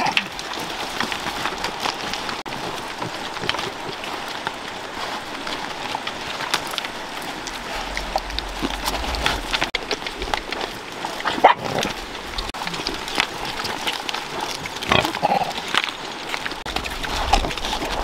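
Pigs and dogs feeding together from woven baskets of rice and greens: a steady mix of chewing and smacking with many small clicks, and a brief animal call about fifteen seconds in.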